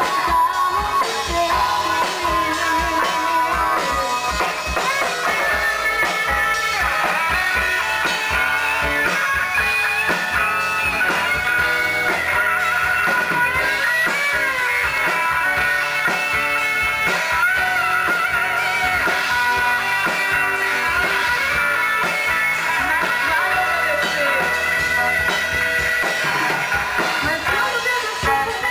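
Live band playing an instrumental passage of a gospel song: a guitar carries a wavering, gliding melody line over drums and backing instruments.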